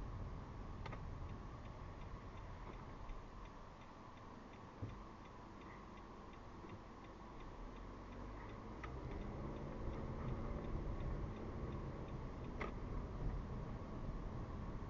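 A car's turn-signal indicator clicking in an even rhythm inside the cabin, over a low engine and road rumble that grows louder about nine seconds in.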